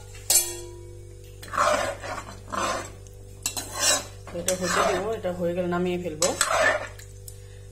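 Metal spatula clinking and scraping against a metal kadai while stirring fish curry in its thin gravy. There is a sharp clink near the start, then several scraping strokes.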